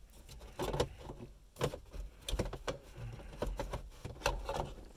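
Plastic interior trim pieces of a car's center console knocking and clicking as they are handled and fitted together, about half a dozen irregular knocks.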